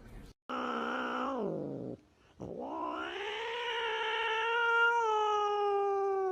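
A domestic cat meowing in two long, drawn-out calls: a shorter one that drops in pitch at its end, then, after a brief pause, a much longer one that rises, holds a steady pitch and falls away at the end.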